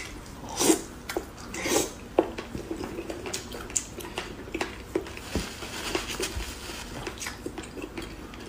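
Close-miked eating sounds: a run of short wet clicks and smacks of chewing, with a couple of louder bites in the first two seconds.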